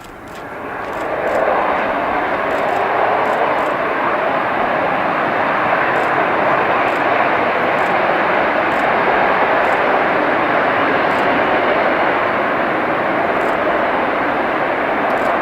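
EA-6B Prowler's twin J52 turbojets at takeoff power: a jet roar that swells over the first second or so and then holds loud and steady.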